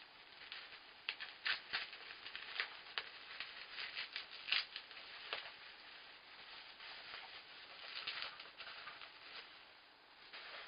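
Plastic sport-stacking cups clacking as they are handled and stacked, an irregular run of quick sharp taps, busiest in the first half and again near the end.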